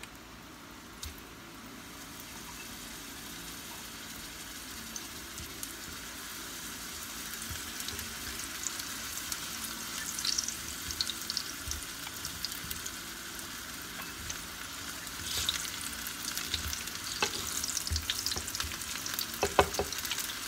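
Sweet potato slices sizzling in hot oil in a frying pan, the frying growing louder as they cook. A few light clicks and scrapes of a fork and spatula against the pan come in the second half.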